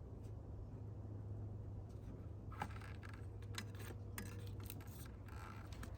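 Faint clicks and light rattles of hands working the plastic electrical connectors on the fuel injectors, pressing release tabs to unplug them. The clicks start about two and a half seconds in, over a steady low hum.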